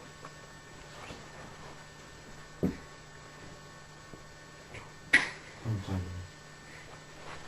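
A steady low hum with a few sharp clicks or knocks: a small one under three seconds in, a louder one a little past five seconds, followed by a couple of dull thumps.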